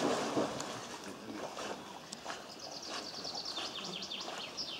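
A dog plunging into a pond with a splash, then swimming, water sloshing and churning around it. A run of quick high chirps comes in over the water noise near the end.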